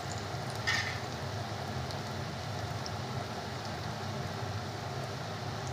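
Grated bottle gourd fritters deep-frying in hot oil in a kadhai: a steady sizzle, with one brief sharper burst just under a second in.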